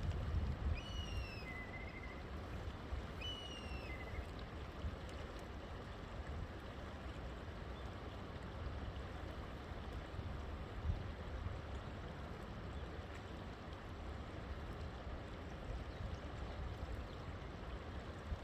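A river flowing steadily, with a low rumble underneath. A bird gives a few short, falling whistled calls in the first four seconds.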